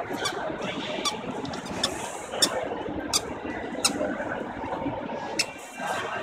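Busy shopping-mall ambience: a steady hubbub of crowd noise, with sharp clicks about every three-quarters of a second.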